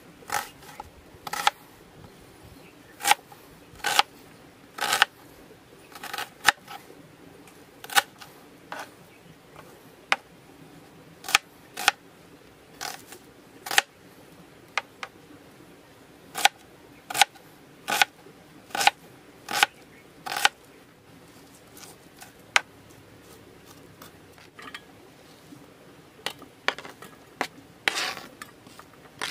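Kitchen knife chopping red onions on a plastic cutting board: sharp, irregular knocks of the blade striking the board, a few quick strokes at a time, with a sparser lull about two-thirds of the way through.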